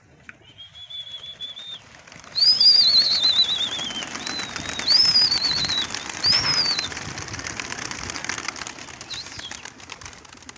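A flock of domestic pigeons taking off together with a clatter of wings while a handler whistles: one short steady whistle, then from about two seconds in several loud, warbling, falling whistles that send the birds up. The wing noise and whistling fade near the end as the flock flies off.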